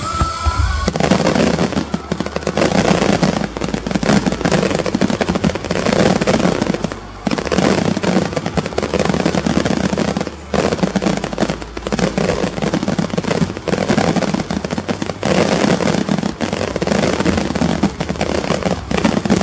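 Fireworks display: a dense, continuous barrage of crackling bursts and bangs, with two brief lulls about seven and ten seconds in.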